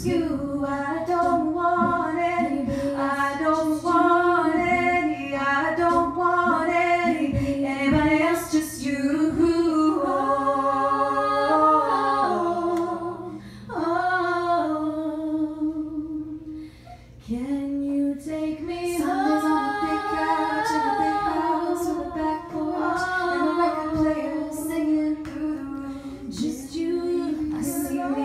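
A woman singing into a microphone, holding long notes; the voice drops away briefly a little past the middle before the singing resumes.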